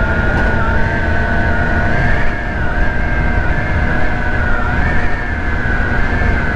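Ice Bear Hawkeye 150cc GY6 scooter running under way, its engine and drive giving a steady high whine that wavers slightly in pitch with the throttle. Heavy wind rumbles over the microphone underneath.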